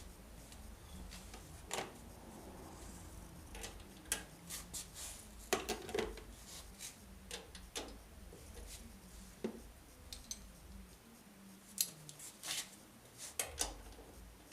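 Small metal parts and hand tools clicking, clinking and scraping in irregular bursts as a part is worked loose on a lawnmower.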